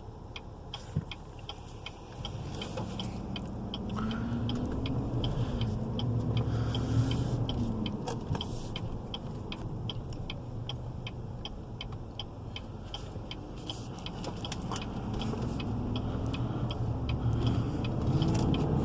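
The 6.2-litre V8 of a 2017 GMC Yukon Denali running under way, heard from inside the cabin, its pitch climbing as the truck accelerates and dropping back at gear changes, twice. A steady, even ticking repeats throughout.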